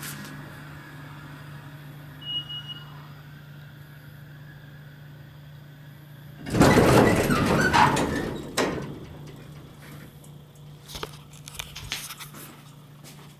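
Otis hydraulic elevator arriving at the lobby: a steady low hum, a brief high chime about two seconds in, then the doors sliding open loudly for about two seconds starting some six seconds in, followed by a few light clicks. The doors begin opening as the car is still levelling, the advance door opening called pre-door.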